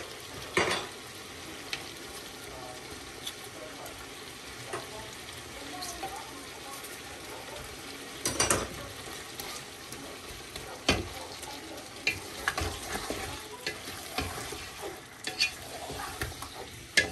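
Chicken with spices and tomatoes frying in a pot with a steady sizzle, stirred with a spoon that knocks against the pot a few times, with smaller clicks near the end.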